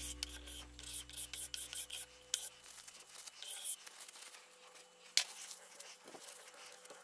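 A 3D-printed plastic ruler scraping softened glue residue off a Prusa i3 MK3 print bed in quick repeated strokes, then softer rubbing with a paper towel. A single sharp tap comes about five seconds in.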